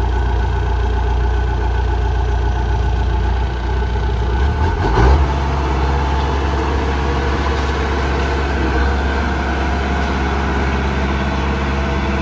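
Kubota DC-105X tracked combine harvester's diesel engine running steadily. About five seconds in there is a brief louder knock and the engine note shifts, then it runs on at a new steady pitch.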